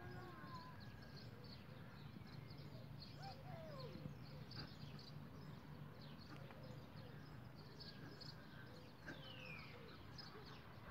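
Faint outdoor ambience of small birds chirping, with short high chirps and a few gliding calls scattered throughout, over a low steady hum.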